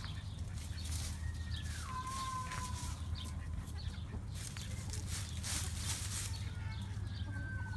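Chickens calling: a long call that slides down in pitch about a second in, and another near the end, with scattered short clicks over a steady low hum.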